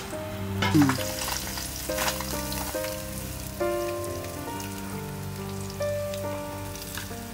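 Hot oil sizzling and crackling in an iron kadai as fish pieces fry and are lifted out with a wire skimmer, with background instrumental music playing throughout.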